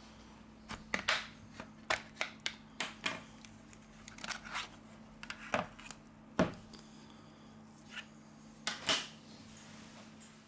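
Plastic back cover of a Xiaomi Redmi 8A being worked off the phone: a series of light, irregular clicks and short scrapes as the cover comes away from the frame, over a faint steady hum.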